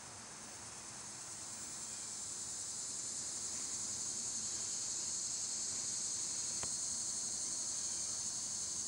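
A steady, high-pitched chorus of insects in the trees, swelling a little over the first few seconds and then holding. A single sharp click comes about three-quarters of the way through.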